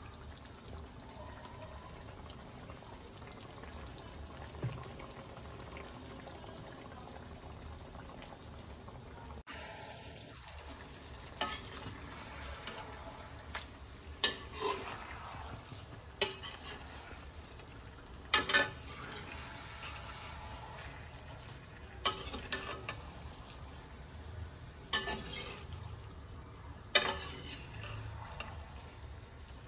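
Food sizzling steadily in hot oil in a pan. In the second half, a spatula stirs and knocks sharply against the pan every two to three seconds.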